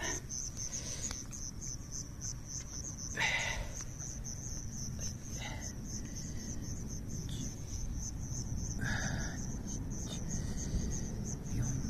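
Crickets chirping steadily in a high, even pulse about three times a second, over a low rumble, with two brief louder noises about three seconds in and about nine seconds in.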